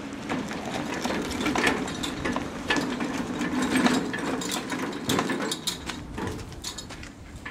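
Rolling engine stand carrying an outboard motor wheeled across a concrete floor, its casters rumbling and its metal frame rattling with irregular clicks and knocks that ease off near the end.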